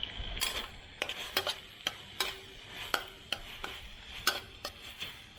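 Stirring onions in a wok: a utensil scrapes and knocks against the pan in irregular strokes, over a steady sizzle.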